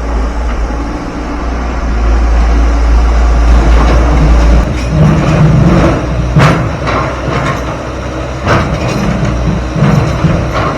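Heavy diesel machinery working, most likely the excavator scooping and loading broken rock: a steady low engine rumble with rocks knocking and clanking several times, the sharpest knocks about six and a half, eight and a half and ten seconds in.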